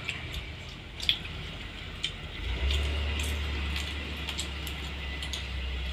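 Sounds of a meal: scattered light clicks and clinks of a spoon and hands on plates, with eating sounds. A low steady hum comes in about two and a half seconds in.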